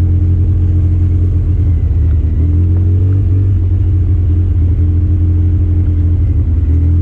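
Engine of a Polaris RZR side-by-side running steadily as it drives along a dirt track, a constant low drone.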